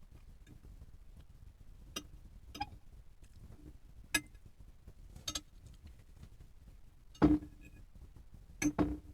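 Cutlery clinking against dishware while eating pasta: a handful of separate short clinks, the loudest about seven seconds in and two close together near the end.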